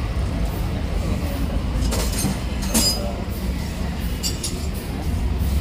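A few light metallic clinks, about two seconds in, just before three seconds and again a little past four seconds, over a steady low rumble.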